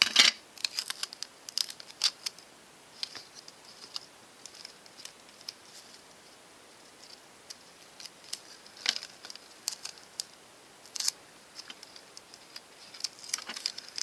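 Paper and clear sticky tape being handled and pressed by hand: scattered crinkles, rustles and small clicks. The loudest cluster comes right at the start, with more bunches later on.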